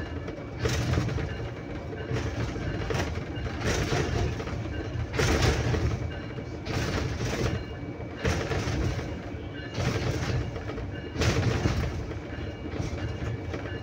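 A train rolling along the track, heard from on board: a steady rumble of wheels on rails with a faint hum, and a louder rush of noise every one to two seconds.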